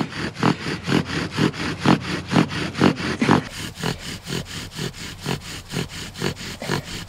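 Bow drill in use: the wooden spindle squeaking and grinding in the cypress pine fireboard with each back-and-forth stroke of the bow, an even rhythm of about four to five strokes a second. The friction is building heat toward an ember.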